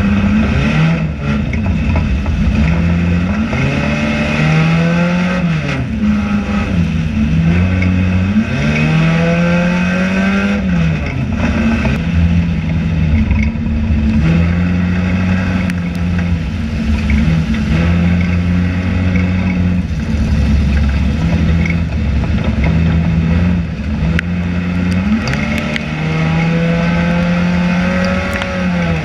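Enduro stock car's engine heard from inside the stripped cockpit at racing speed. It climbs in pitch under throttle and drops off several times, with a long stretch of steady running in the middle and a final climb and drop near the end.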